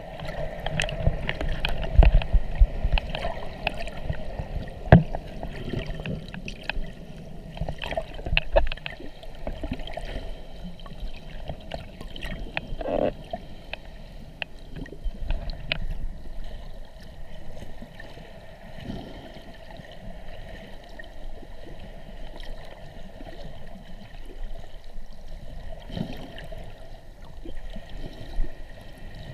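Water sloshing and gurgling around a camera held just under the sea surface, with irregular knocks and pops, busiest and loudest in the first ten seconds or so.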